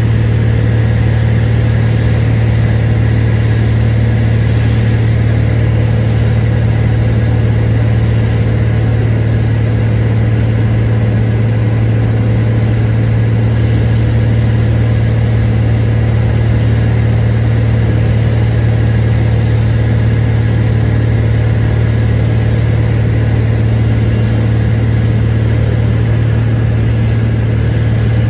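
Piston engine and propeller of a single-engine Cessna Skylane running steadily in flight, heard inside the cabin: a loud, unchanging low drone with no change in pitch or level.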